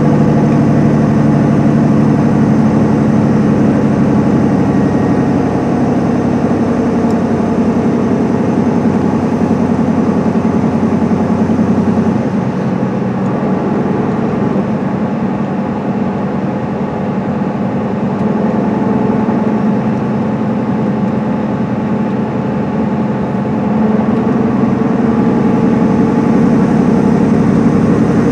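A 2010 MCI D4500CL coach's Cummins ISM inline-six diesel engine running at freeway speed, heard from inside the passenger cabin as a steady drone with road noise. It eases off slightly about 12 seconds in and builds again near 24 seconds.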